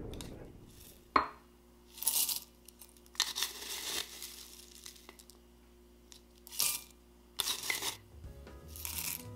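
Corn flakes poured into a glass in five short, dry rustling bursts, after a single sharp click about a second in.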